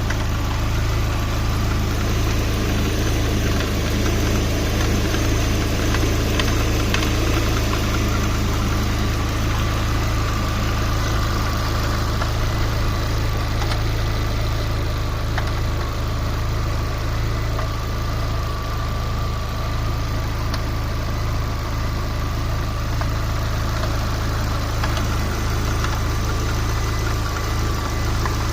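Lada Priora's 21126 1.6-litre sixteen-valve engine idling steadily, with a knock from the timing belt tensioner roller. The roller's dust cover has fallen out and dirt has got into it.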